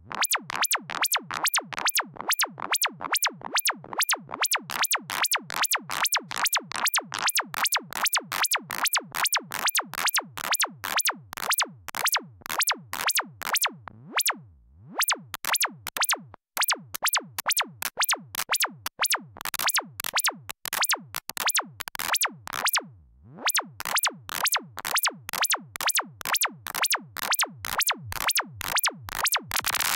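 Software modular synthesizer (VCV Rack) playing a rapid run of short, sharp percussive hits, about three a second, each a burst of noise cut off by a fast-decaying envelope, like a synthesized hi-hat or snare. The run breaks off briefly twice.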